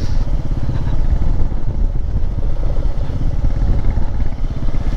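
Royal Enfield Meteor 350's single-cylinder engine running steadily at cruising speed under the rider.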